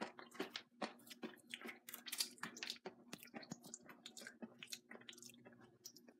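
Crunching of a hot Takis rolled tortilla chip being chewed close to the microphone: irregular crisp crunches, several a second, over a faint steady hum.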